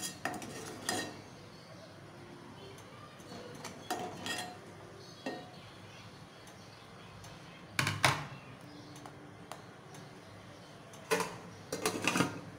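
Metal ladle clinking and scraping against an aluminium cooking pot and a steel serving dish as curry is ladled out. The clinks are scattered: the loudest comes about eight seconds in, and a quick run of them comes near the end.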